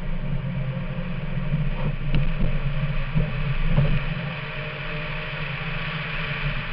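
Rally car's engine running steadily under load at speed, heard from inside the car, with road and tyre noise and a few short knocks about two to four seconds in as it runs over the dirt.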